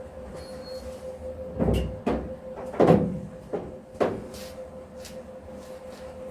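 Several separate knocks and clunks, about five in two and a half seconds and the loudest near the middle, over a steady low hum.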